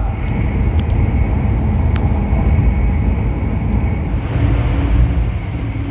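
Hokuriku Shinkansen running at speed, heard from inside the carriage: a steady low rumble, with a faint high whine over it for the first few seconds.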